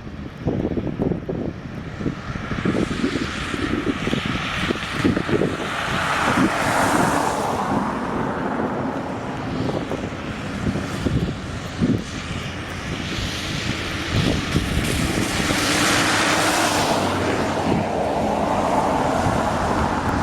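Wind buffeting the microphone over a continuous engine rumble, which swells twice as something passes.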